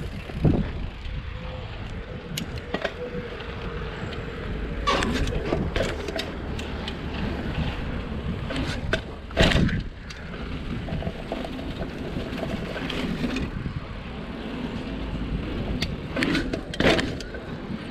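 Bicycle riding over rough ground: a steady rumble of tyres and wind with scattered knocks and rattles from the bike, the loudest knock about nine and a half seconds in.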